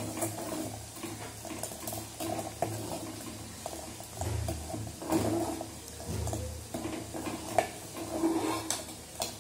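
Metal ladle stirring a thick gravy in an aluminium pot, with irregular scrapes and clinks of metal against the pot.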